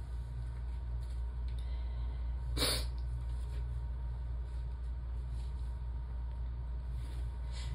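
A pause in a sneezing fit: a steady low hum, with one short breathy noise about two and a half seconds in.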